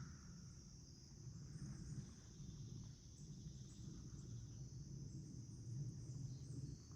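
A swarm of bees buzzing at flowers: a low, wavering hum, under a steady high-pitched insect drone.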